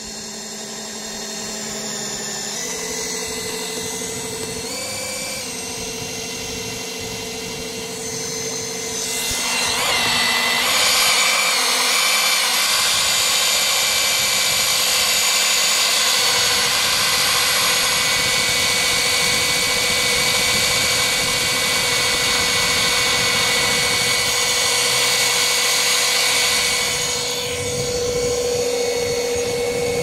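Homemade outboard motor driven by an old Ryobi 18-volt cordless drill motor, running under load with a steady whine as it pushes an inflatable pontoon boat. It gets louder from about nine seconds in and eases slightly near the end.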